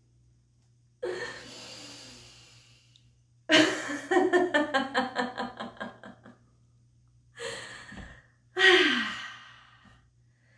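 A woman breathes in audibly, then laughs heartily in a long run of quick 'ha ha' pulses, takes another breath and lets out a falling, voiced sigh: deliberate laughter-exercise laughing.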